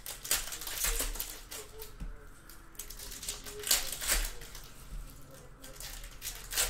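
Foil wrapper of a Panini Donruss Optic basketball hobby pack being torn open and crinkled by hand, in irregular bursts of ripping and crackling.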